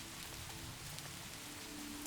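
Steady rain falling, a continuous hiss with scattered fine drop patter, over a faint sustained music pad of held notes; a new held note comes in about a second and a half in.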